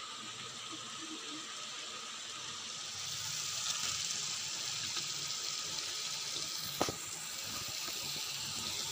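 Spiced curd masala sizzling steadily in a frying pan, the sizzle growing a little louder about three seconds in as fried pointed gourd, potato and paneer pieces are tipped in. One sharp knock of a utensil near the end.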